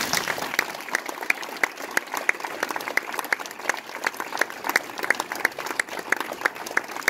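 Audience applauding: many hands clapping steadily, with one set of claps standing out close by at about three a second.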